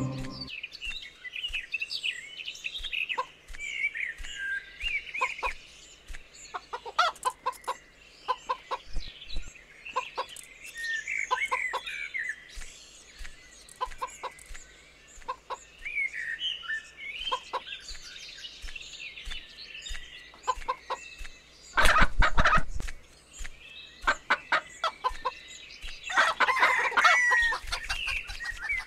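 Chicken sound effects from a farm game: hens clucking and chirping, scattered short clicks, and a louder burst about 22 seconds in.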